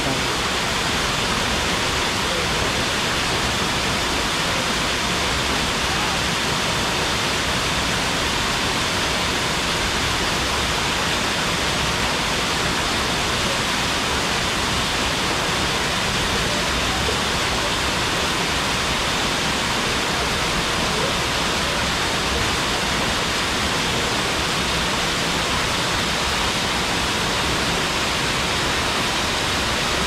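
Waterfall pouring steadily: a constant, even rush of falling water.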